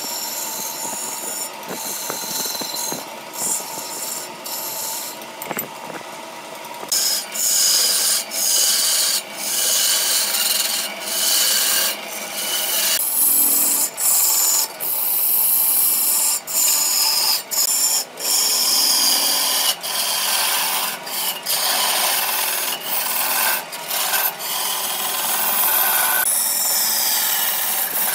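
A hand turning tool cutting into a large wooden blank spinning on a wood lathe, a steady scraping, rasping hiss. About a quarter of the way in it grows louder, and from then on it breaks off briefly many times as the tool comes on and off the wood.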